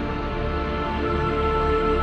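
Background music with long held notes over a low bass; the chord changes about a second in.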